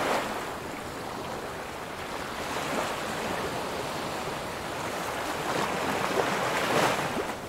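Gentle ocean waves washing up on a sandy beach, a steady rush that swells as a wave comes in near the end.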